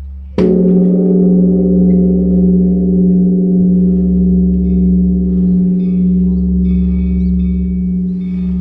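Large Korean Buddhist temple bell (beomjong) struck once with a wooden log, then ringing on with a deep steady hum and a low tone that slowly swells and fades.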